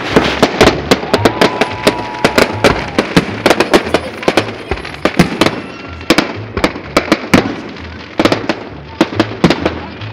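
Fireworks display: a rapid, irregular barrage of aerial shell bursts cracking and booming, several a second, heard through a phone's microphone.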